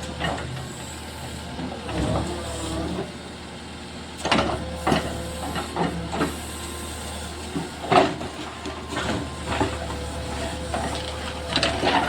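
JCB backhoe loader's diesel engine running steadily, with irregular sharp knocks and cracks through it.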